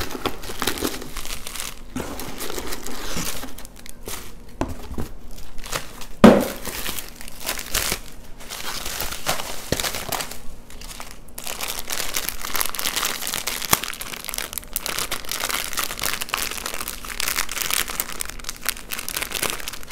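Bubble wrap and plastic packaging crinkling and rustling as it is handled and unwrapped by hand, with one loud thump about six seconds in.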